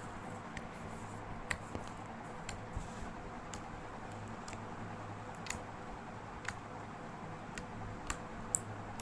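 Slime being worked by hand with styrofoam beads mixed in, giving scattered small clicks and pops over a steady low hum.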